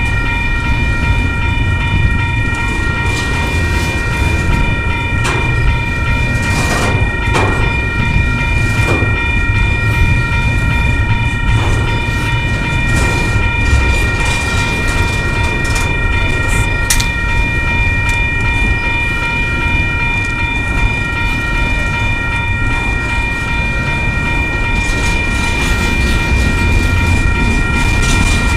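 Double-stack intermodal well cars of a freight train rolling past at close range: a steady low rumble of wheels on rail with occasional clanks. A steady high ringing tone runs through it.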